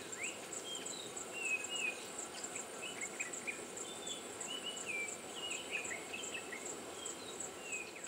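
Outdoor bush ambience: an insect's steady, evenly pulsing high-pitched trill, with small birds' short chirps and whistles scattered over it.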